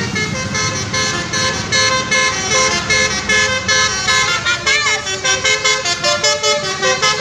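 Telolet-style musical vehicle horn playing a quick tune: several horn tones sound together and step to new notes every fraction of a second.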